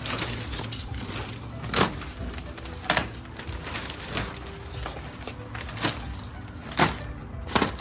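Irregular sharp knocks and crackles, about six of them with rustling in between, as packing material is pulled off a new washing machine.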